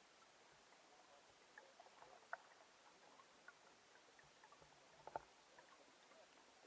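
Faint hiss with a few small water pops and ticks, the sharpest about two seconds in and a close pair of them about five seconds in.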